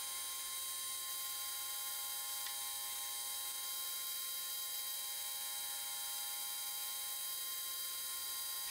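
Metal lathe running with its chuck spinning: a steady whine of several high tones over a hiss, with no clear cutting noise.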